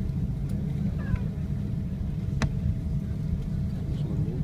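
Steady low cabin rumble inside a Boeing 777 rolling on the ground after landing, with a sharp click about halfway through and a few faint brief squeaks.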